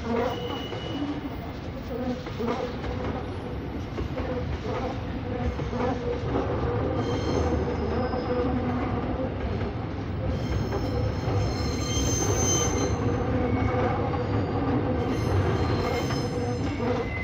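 Freight train of container wagons rolling past, a steady rumble with occasional clacks of wheels over rail joints. From about seven seconds in the noise grows louder, and high-pitched wheel squeals come and go over it.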